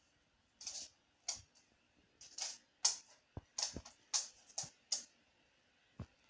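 A whippet pawing at a bug on a hard floor: a dozen or so short, separate sounds of quick sniffs at the floor and its claws tapping and scraping on the boards, with quiet gaps between them.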